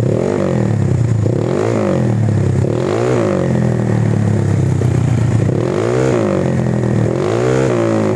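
Honda Vario scooter's single-cylinder four-stroke engine revved through a full-stainless racing exhaust: about five short throttle blips, each a quick rise and fall in pitch, over a steady low idle, with the rear wheel spinning free on the centre stand. The exhaust note sounds like a modified, non-standard engine, and the throttle is opened less than a quarter.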